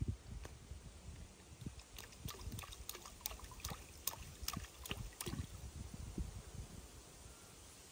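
Small drips and light splashes in pond water: a quick run of about a dozen sharp little plinks between about two and five and a half seconds in, over a low rumble.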